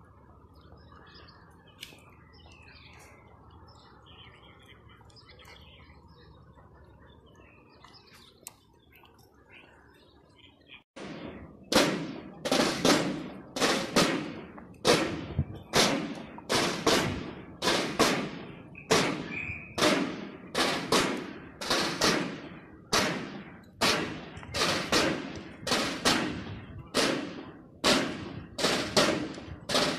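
Faint outdoor ambience with a few bird chirps. About a third of the way in, loud drum strokes start suddenly and repeat evenly, a little more than one a second: a military ceremonial drum corps beating a steady cadence for the flag.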